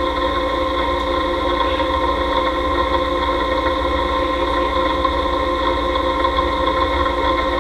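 Vertical knee milling machine running steadily: an even mechanical hum with several constant whining tones over a low rumble.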